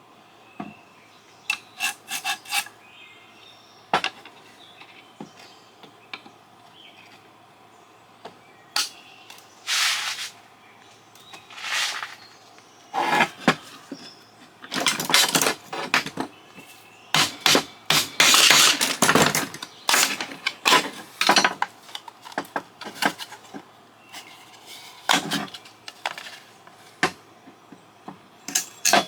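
Hand tools scraping and prying at the housing of a satellite LNBF to break it open: scattered clicks and knocks, with a run of louder scraping strokes in the middle.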